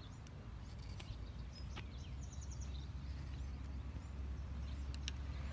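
Outdoor ambience: a steady low rumble with faint bird chirps, including a quick run of chirps about two seconds in, and a few faint clicks.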